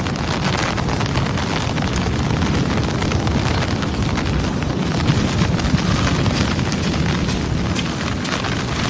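Violent storm wind blasting over the microphone: a dense, loud, steady rush of noise with heavy low rumble and scattered crackles.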